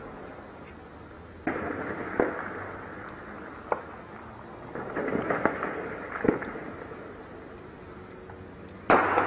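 Scattered gunshots at irregular intervals, about seven in all, a few close together in the middle and the loudest near the end, each trailing off in an echo.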